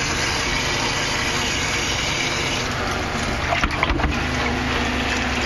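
Dog-bathing tub's recirculating bath pump running steadily, churning and gushing the water in the tub. The splashing hiss grows a little louder about halfway through.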